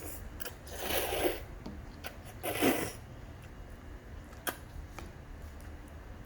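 A baby eating: two short crunchy noises about a second and a half apart, then a sharp click near the end.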